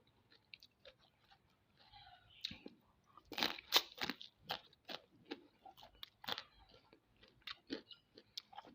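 Mud crab shell being bitten and cracked, with crunching and chewing. There is a quick run of loud cracks a little past the middle and another about two-thirds through, with lighter crunches around them.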